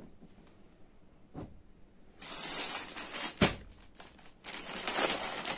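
Clear plastic garment packet crinkling as it is handled and set down, starting about two seconds in, with one sharp tap about halfway through.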